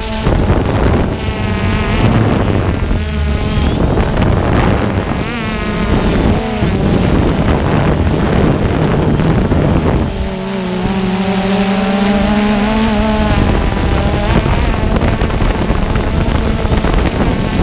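DJI Phantom 2 quadcopter's four motors and propellers buzzing loudly, heard from the camera on the drone itself, with wind rushing over the microphone. The pitch wavers as the motors change speed while it manoeuvres, then holds steady for a few seconds about two-thirds of the way through.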